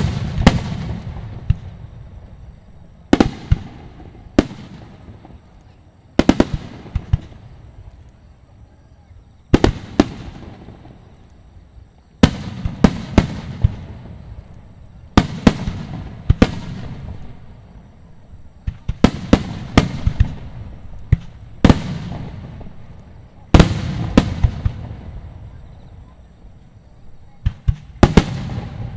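Aerial firework shells bursting: a sharp bang every few seconds, sometimes two or three in quick succession, each trailing off in a low rumble over a second or two.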